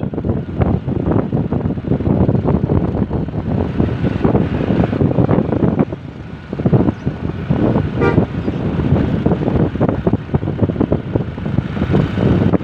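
Heavy wind buffeting on the microphone over vehicle engine and road noise, as from riding along behind a bus, with a short horn toot about eight seconds in.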